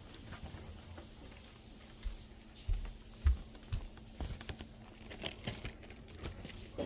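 Scattered soft knocks and clicks of things being handled, the loudest a little past three seconds in, over a faint steady hum.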